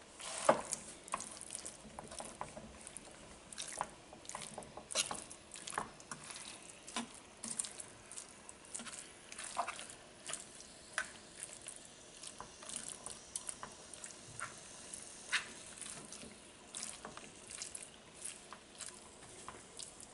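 Metal fork stirring and turning moist, seasoned chicken pieces in a nonstick frying pan, with irregular clicks and scrapes of the fork against the pan throughout.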